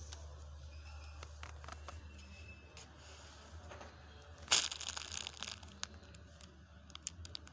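Rustling and crinkling, as of plastic or fabric being handled close to the microphone, breaking in suddenly with a loud burst about halfway through and followed by scattered crackles, over a low steady hum.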